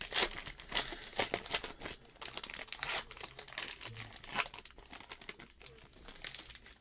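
Shiny plastic wrapper of a football trading-card pack crinkling and tearing in the hands as the pack is ripped open: a quick run of sharp crackles that eases off near the end.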